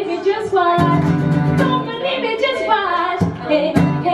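A woman singing live while strumming chords on an acoustic guitar, the voice carrying the melody over a steady strum.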